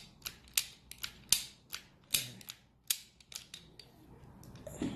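Powered electric door lock mechanism clicking as its latch is worked and released: a series of about a dozen sharp, irregular mechanical clicks.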